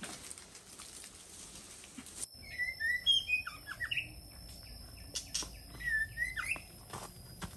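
A songbird singing short whistled phrases that slide up and down, in two bouts a couple of seconds apart, over a faint steady high tone. Before the song, about two seconds of faint hiss with scattered clicks that stops abruptly, and a few sharp knocks sound between the phrases.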